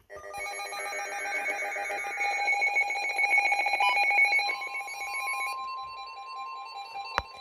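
Emergency alert broadcast tones: several steady electronic tones sounding together with a fast pulsing, settling about four and a half seconds in into one steady tone. A single sharp click comes near the end.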